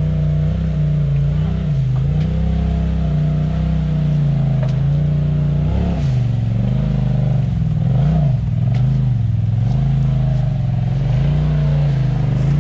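Side-by-side UTV engine under repeated throttle bursts while rock crawling. The engine note rises and falls every second or so, with light clatter over the top.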